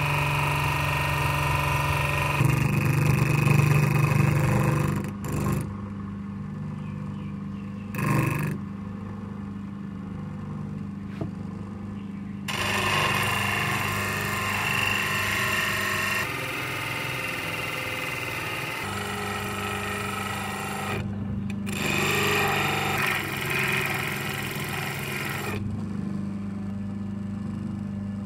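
Electric motor spinning a sanding drum, running with a steady hum while a flat-blade screwdriver tip is ground against the abrasive. There are several grinding passes: a long one at the start, a brief one about eight seconds in, and two more in the second half, with the motor humming on its own between them.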